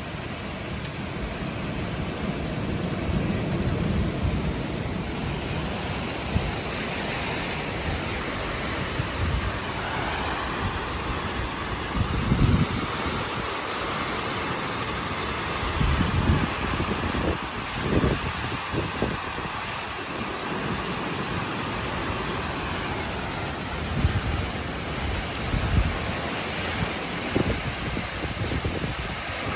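Heavy rain falling steadily on a lawn, patio and pool cover during a thunderstorm, with a continuous hiss. From about halfway through come several short, irregular low rumbles.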